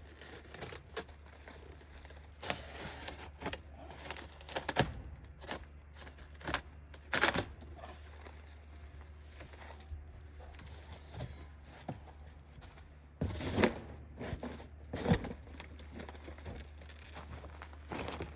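Packaging being handled and torn: irregular rustling, tearing and crinkling with scattered knocks, loudest in two clusters near the middle and about two-thirds of the way in.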